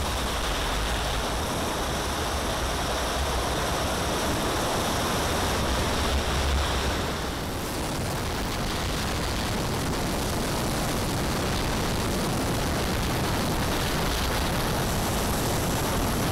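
Steady rush of wind and jet noise picked up by a camera mounted on a giant radio-controlled model of an Avro Vulcan in flight, powered by four Jets-Munt 160 gas turbines. Heavy low wind buffeting for the first seven seconds or so, then a lighter, even rush.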